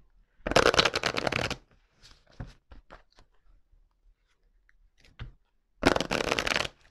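A deck of tarot cards being shuffled by hand: two quick runs of rapid card flicks about a second each, one near the start and one near the end, with light card handling between.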